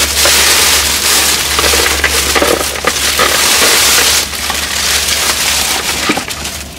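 Paper food wrapping and a cardboard takeaway box crinkling and rustling close to the microphone as they are unwrapped and handled, a loud, dense crackle with many small crunches.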